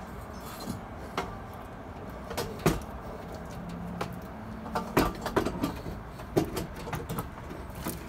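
Irregular metal clanks and knocks, about a dozen sharp strikes, as a turbo and tools are handled on an Integra's engine, with the busiest stretch in the second half.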